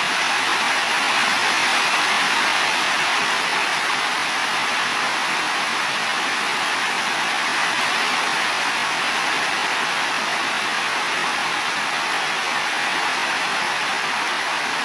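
Heavy rain falling steadily on building roofs: an even, unbroken hiss, with no thunder heard.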